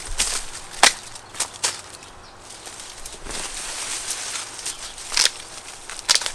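Dry sunflower stalks being snapped and cut into pieces: a few sharp cracks, the loudest about a second in, with rustling of dry leaves between.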